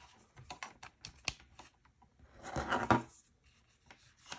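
Scattered small plastic clicks, taps and rattles from handling a gadget and plugging a cable into a USB port, with a denser burst of handling noise a little past halfway.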